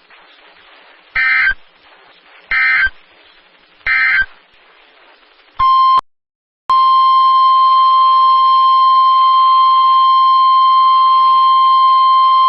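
Emergency Alert System broadcast tones: three short data bursts about a second and a half apart, the end-of-message code closing a severe thunderstorm warning. Then, after a brief blip and a short gap, the steady 1050 Hz weather-radio warning alarm tone starts about seven seconds in.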